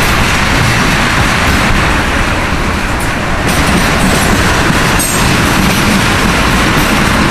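Freight train of ethanol tank cars rolling past at close range: a loud, steady rumble and rattle of steel wheels on rail, with occasional wheel clacks at the diamond crossing.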